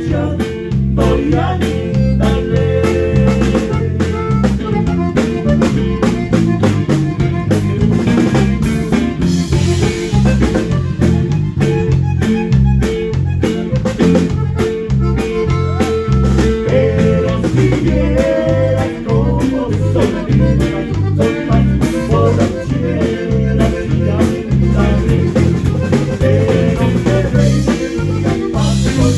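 Live band playing an instrumental passage: drum kit, a busy walking bass line and electric guitar, loud and steady throughout.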